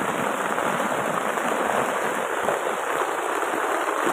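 Heavy rain falling steadily on a tarp shelter and the soaked forest floor: a dense, even hiss with no letup.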